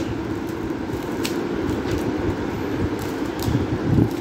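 Cellophane gift wrap rustling and crinkling as it is pulled back from a box, with a few sharp crackles, over a steady low hum. A low thump near the end.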